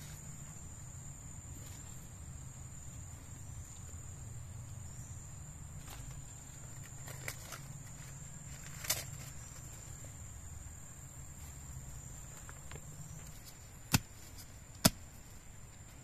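Steady high-pitched insect drone, with soft rustling of dry leaves and twigs as hands work in the leaf litter. Two sharp clicks near the end.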